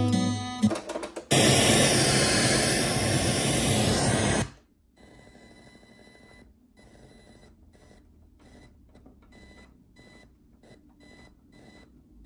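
Guitar music from the Panasonic SA-PM29 mini stereo's speakers breaks off about a second in, and the radio tuner comes on with loud static hiss for about three seconds, then cuts off suddenly. After that comes a faint hiss with a thin steady whine, muted briefly again and again as the tuner is stepped through frequencies.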